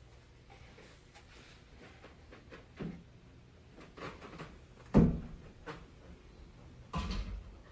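A few wooden door knocks and thuds over quiet room tone, the loudest about five seconds in and another cluster near the end.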